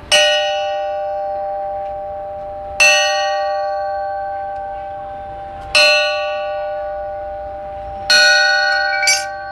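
Burmese bronze spinning gong struck four times about three seconds apart, with a lighter fifth stroke near the end. Each stroke gives a clear, strong ring of several steady tones that dies away slowly and is still sounding when the next one lands.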